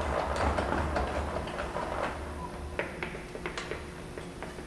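A router table's height adjuster being cranked down, its gears rattling with a low rumble that fades after about two and a half seconds, followed by scattered clicks and taps.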